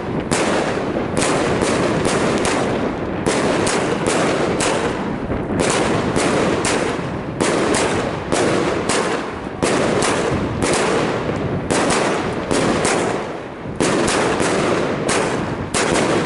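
Wolff 'Kick The Sky' firework cake firing a rapid volley of shots and star bursts, about two to three a second, with dense noise between them and a few brief pauses.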